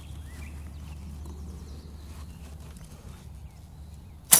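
A compound bow shot from full draw near the end: one sharp, loud snap of the released string and limbs as a bowfishing arrow is fired. Before it, a low steady hum and faint bird chirps.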